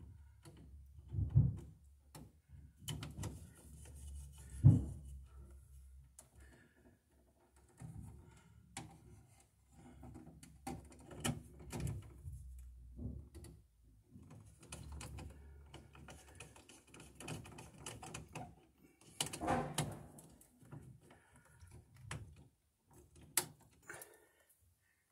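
Hands and a screwdriver working wires and a double-pole breaker inside a metal electrical panel: irregular clicks, taps and knocks, with a few louder knocks in the first five seconds and a stretch of rustling near the end.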